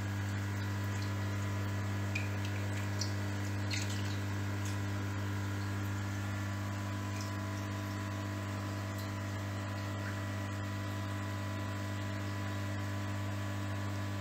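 Aquarium air pump humming steadily as it drives a sponge filter, with a faint trickle of air bubbles and a few small drip-like ticks in the first few seconds.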